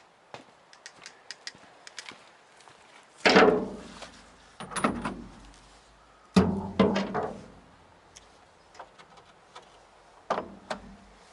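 Spanners and a tool case being handled on a steel truck bed: light clicks and rattles at first, then four or five heavier metal clanks with a short ringing tail, spaced a second or two apart.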